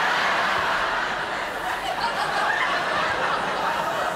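Theatre audience laughing, a steady wash of laughter.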